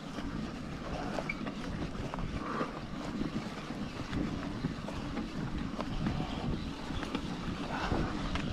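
Wind buffeting the microphone, a fluctuating low rumble with faint rustling.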